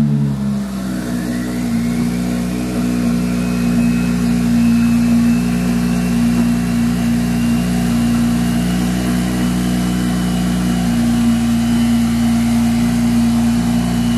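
BMW 335's engine just fired up, with a loud flare at the very start. It then idles steadily, a faint higher whine rising and levelling off over the first few seconds.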